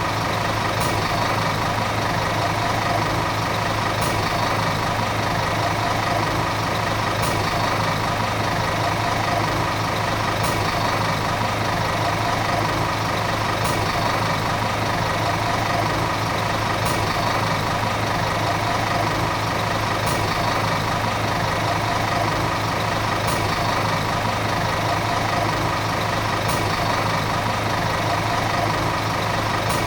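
Volvo city bus diesel engine running steadily, with no change in pitch, and a faint tick about every three seconds.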